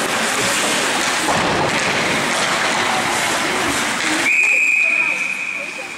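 Ice hockey referee's whistle: one long, steady blast that starts about four seconds in and signals a stoppage of play. Before it there is a loud, even rushing noise.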